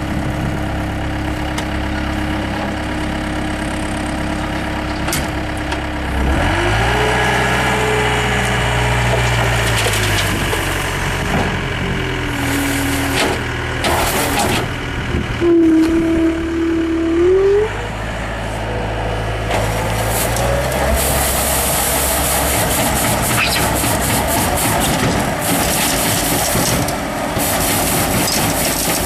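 Bobcat skid steer loader engine running, throttled up about six seconds in with a rising whine, easing off and rising again around sixteen seconds. A steady rushing noise joins after about twenty seconds.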